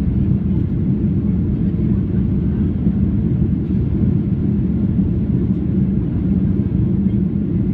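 Boeing 737-800 airliner in flight, heard inside the passenger cabin: a steady low rumble of engine and airflow noise.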